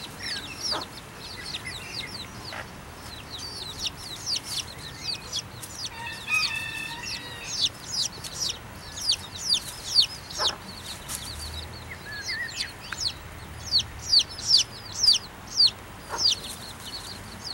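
Domestic chick peeping: a rapid run of short, high, falling peeps, several a second and thickest in the second half, with a lower layered call about six seconds in.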